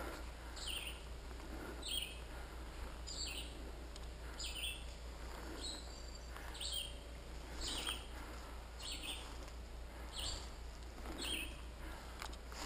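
A bird calling over and over, a short high note repeated about once a second, faint.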